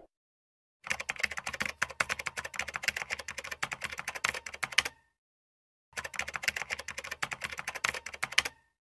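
Typing sound effect that goes with text being typed out on screen: two runs of rapid key clicks. The first lasts about four seconds. The second starts about a second later and stops just before the end.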